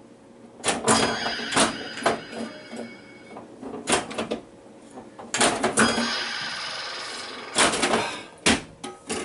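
Bally Flash Gordon pinball machine in play: clusters of sharp solenoid clacks as the flippers fire and the ball strikes playfield devices, each burst followed by ringing electronic sound effects from the game's sound board.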